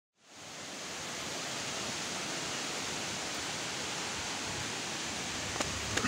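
Steady rushing of a waterfall, fading in over the first second. A light click near the end.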